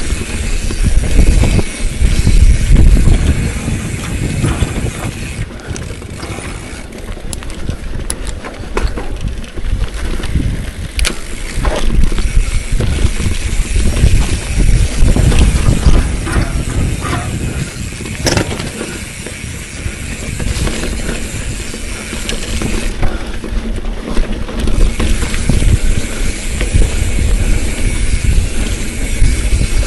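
Bicycle being ridden on a rough trail: a heavy low rumble of wind on the microphone, with the bike rattling over bumps and scattered sharp clicks from its freewheel and drivetrain.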